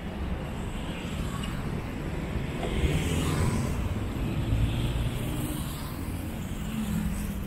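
City street traffic: motor vehicle engines running and passing, a steady low rumble with an engine hum coming up near the end.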